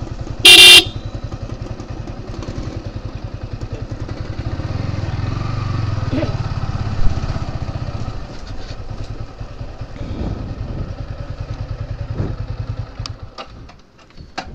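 Motorcycle engine running at low speed while ridden, its firing pulses steady and picking up somewhat in the middle before fading near the end as the bike comes to a stop. A short, loud horn beep sounds about half a second in.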